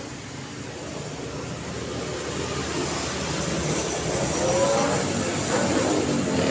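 Road traffic: a steady wash of tyre and engine noise that grows louder as a vehicle approaches, its engine pitch rising in the last couple of seconds.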